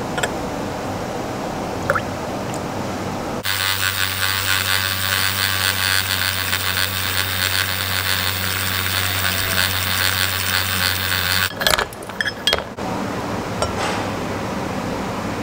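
Milk pouring into a glass. Then a handheld milk frother whirs steadily in the glass with a low hum for about eight seconds and stops suddenly, followed by a few sharp clinks against the glass. Near the end coffee pours into the glass.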